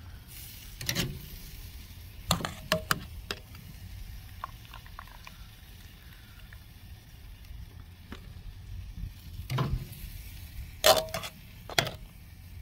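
Metal tongs clinking and scraping against a steel pot as chicken drumsticks are dipped in thick barbecue sauce. A few scattered clinks, some with a short metallic ring, the loudest near the end.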